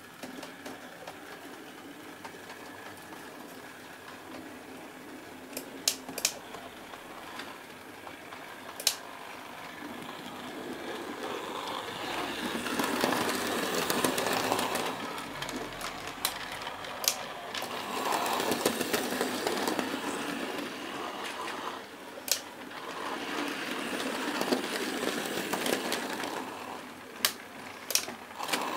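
OO gauge model locomotives running on the layout: the whirr of their small electric motors and wheels on the rails, swelling several times as trains pass close by. Several sharp clicks cut through it.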